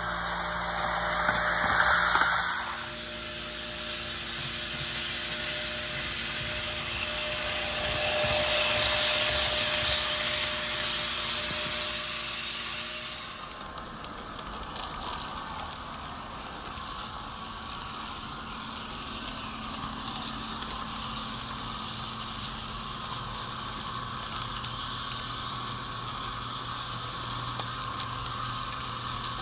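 HO scale Sydney Trains Tangara model running on its layout. It opens with a loud hiss lasting about two seconds, then a steady hum from the LokSound sound decoder. From about halfway the sound changes to a steady fine rattle of model wheels running over the track.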